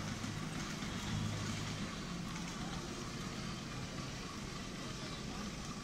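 Miniature steam locomotive running along the track at a distance: a faint steady running noise, with a low hum for the first couple of seconds.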